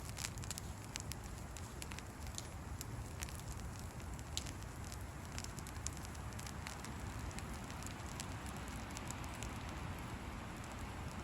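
Wood fire crackling, with irregular sharp pops and snaps over a steady low rush.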